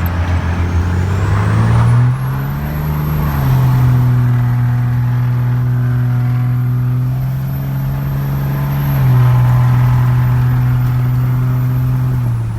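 Straight-piped 24-valve Cummins 5.9 L inline-six diesel in a 1999 Dodge Ram, pulling hard at full throttle through a 4-inch exhaust with no muffler, heard through open cab windows. The engine note climbs for the first few seconds, then holds steady, gets louder about nine seconds in, and drops off near the end. A high turbo whistle rises with it and then holds; the Holset HX35 turbo's silencer ring has been removed.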